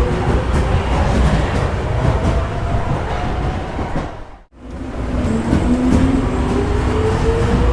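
Subway train pulling away: a steady rumble of wheels with an electric motor whine rising in pitch as it gains speed. About halfway through the sound fades out abruptly and starts over.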